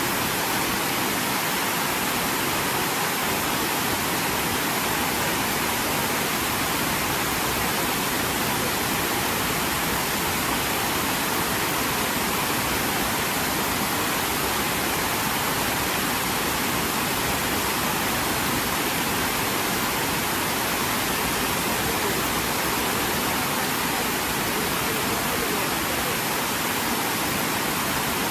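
Waterfall, water falling and splashing in a steady, unbroken rush with no distinct events.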